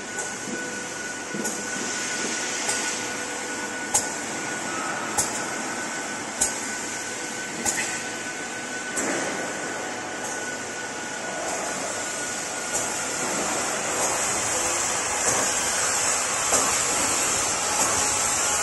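Fiber laser tube cutting machine running: a steady hiss with a thin whine, and a sharp click about every second and a quarter.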